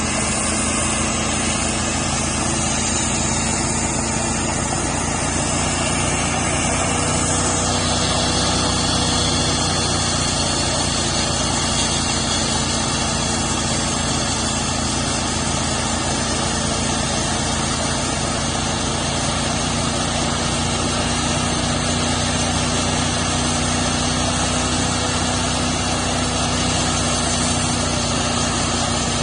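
Homemade sawmill running steadily on its small engine while cutting a spalted maple log, with a shift in the higher-pitched part of the sound about seven seconds in.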